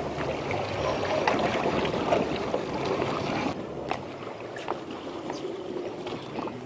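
Wind and sea water on an open boat, a steady rushing noise; about three and a half seconds in it changes abruptly to a muffled underwater sound with scattered faint clicks.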